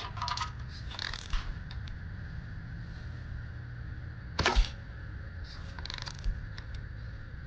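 Daisy Model 105 Buck spring-air BB rifle: a sharp shot about four and a half seconds in. Around it, shorter clacks and clicks about a second in and again near six seconds, which fit the lever being worked to cock it.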